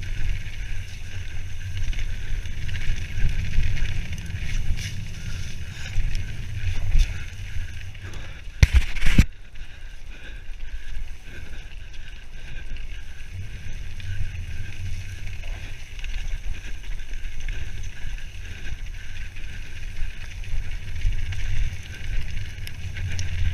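Mountain bike riding fast down a dirt forest trail, heard from a bike-mounted action camera: constant wind buffeting the microphone with tyres rumbling and the bike rattling over the ground. A loud clattering knock about nine seconds in.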